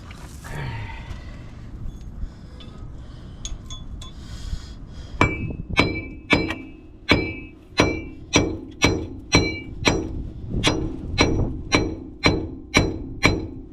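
Mini sledgehammer striking a seized front wheel hub bearing assembly, metal on metal, to drive it out of the steering knuckle. After a few light clinks, steady ringing blows start about five seconds in and come about twice a second.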